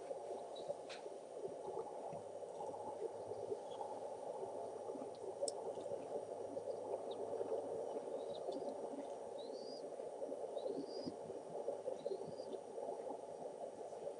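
Outdoor ambience: a steady rushing background, with a few sharp ticks early on and three short rising bird chirps about two thirds of the way through.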